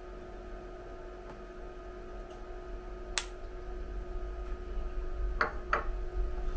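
A small stainless steel pitcher set down on a wooden table, two light metallic knocks near the end, after a single sharp click about three seconds in. A steady low hum of room tone runs underneath.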